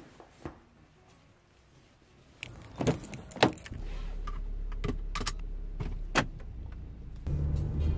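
Inside a Hyundai car: a few sharp knocks and clicks as the driver settles in, then about four seconds in the engine starts and settles into a steady low idle hum, with more clicks over it. The hum grows louder near the end.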